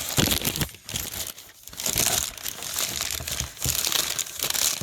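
Wrapping paper being crumpled and crinkled by hand as an item is unwrapped, in irregular rustling bursts with a brief lull about a second and a half in.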